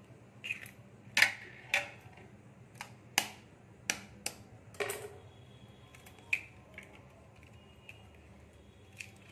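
An egg being knocked against a steel bowl and cracked open: a string of short, sharp taps and clicks at uneven intervals, the loudest about a second in.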